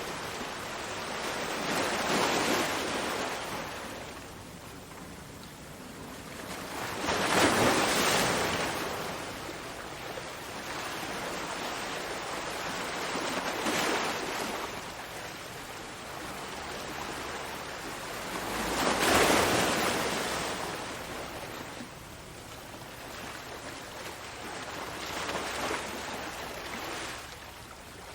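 Small waves washing against harbour rocks, each wash swelling and fading away, one every five or six seconds; the loudest come about seven and nineteen seconds in.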